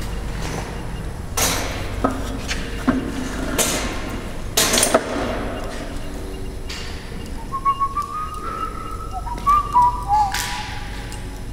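A handful of sharp knocks as the flux-core welder and its steel mesh-topped cart are handled, then, about halfway through, a few seconds of thin, steady whistle-like tones.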